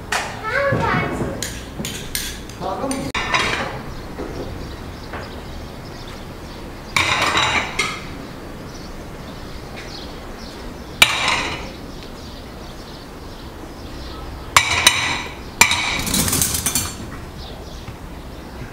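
Metal spoons and forks and porcelain plates clinking and clattering as they are wiped with a towel and set down on a wooden table, in a few short bursts.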